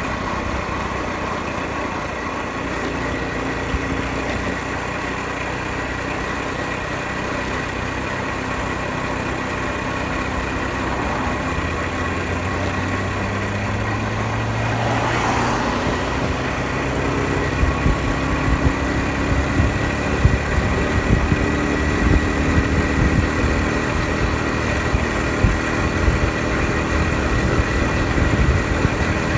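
Honda Super Cub 50's small single-cylinder four-stroke engine running while riding, with wind and road noise. About halfway through the engine note rises, with a brief rush of noise, and the sound gets louder and choppier after that.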